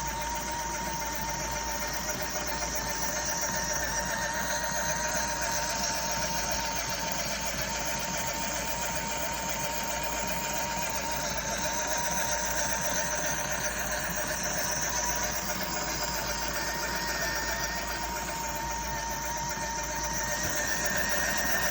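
Miniature lathe's small electric motor running with a steady, high whine.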